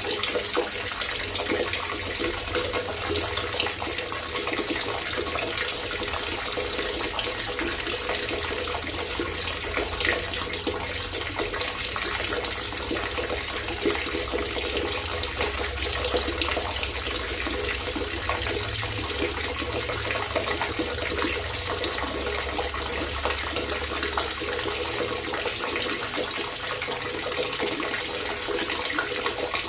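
Water trickling and babbling steadily, with many small splashes and bubbles over a low rumble.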